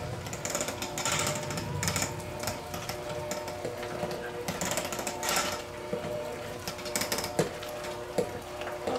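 Electric hand mixer running steadily, its beaters churning a thick cream cheese filling in a glass bowl, with a few sharp clicks along the way.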